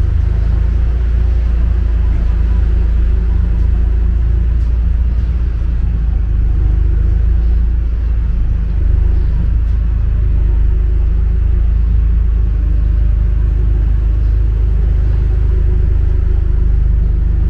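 Outdoor street ambience dominated by a steady low rumble, with no distinct events standing out.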